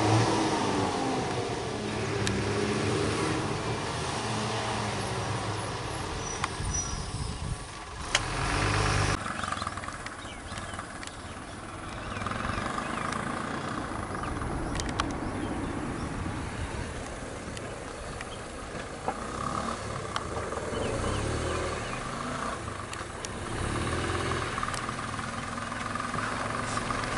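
Motor vehicle engines idling and running. An abrupt change about nine seconds in, after which a small auto-rickshaw engine is the main sound.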